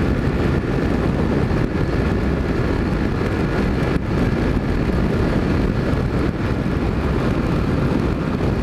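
Steady wind rush over the microphone of a Honda CG single-cylinder motorcycle cruising at speed on a wet road, with the engine running underneath.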